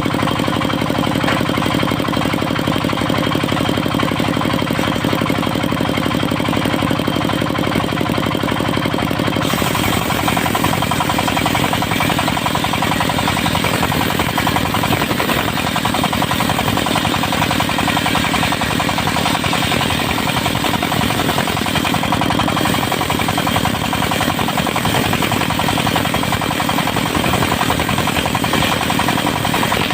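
Engine of a portable circular-saw mill running steadily. About ten seconds in, the disc blade goes into an old mahogany log and a harsh, dense sawing noise joins the engine, lasting until just before the end.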